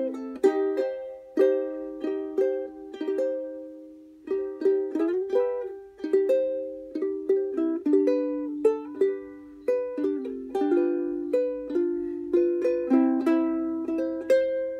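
Solo ukulele playing a tune in plucked and strummed chords, each stroke ringing and fading before the next. There is a brief pause about four seconds in.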